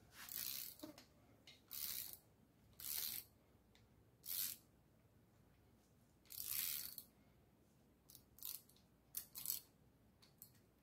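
A ratchet clicking in short strokes, five bursts over several seconds and then a few single clicks, as a loose rocker-arm nut is tightened to take up the valve lash on a V8 with hydraulic lifters.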